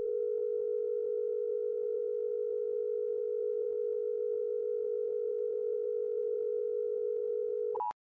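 Steady low electronic tone, like a dial tone, held flat for about eight seconds, closing a simulated emergency alert broadcast. A brief higher blip sounds just before it cuts off.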